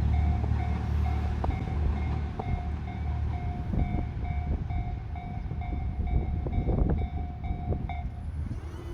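A JR Shikoku Series 1200 diesel railcar rumbles away, its low engine and wheel noise fading. Over it, a level-crossing warning bell rings about twice a second and stops about a second before the end. A few sharp clacks are heard.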